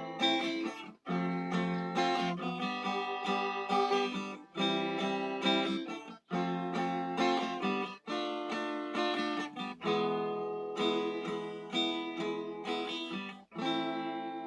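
Acoustic guitar strummed in chords, each chord ringing with short breaks every second or two between strummed passages.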